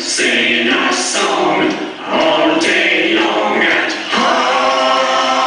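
Layered voices singing a rhythmic a cappella chant, short phrases repeated with brief breaks about once a second.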